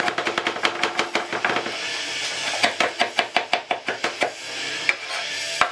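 Kitchen knife chopping flat-leaf parsley on a wooden chopping board: quick knocks of the blade on the board, about six a second, in two runs with a short pause about two seconds in, then a few single strikes near the end.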